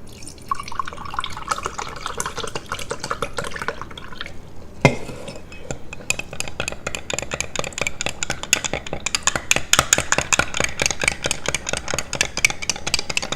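Liquid pouring or trickling into a cup, then a sharp clink, then a spoon stirring a drink with rapid clinking against the cup.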